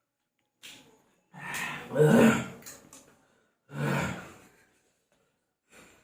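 A person groaning and gasping from the burn of an extremely hot chili chip: two drawn-out pained groans, the first about a second and a half in, the second about four seconds in, with short breaths between.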